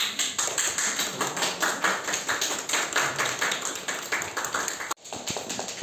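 A small group of people clapping, dense and irregular, breaking off abruptly near the end and then going on more thinly.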